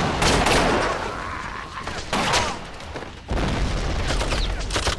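Film battle soundtrack: dense rifle fire and gunshots with men yelling during close-quarters fighting.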